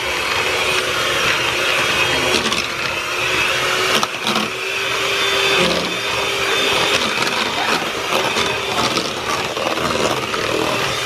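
Electric mixer running steadily as it whips a bowl of cooked potatoes into mashed potatoes, its motor hum dipping briefly in pitch now and then.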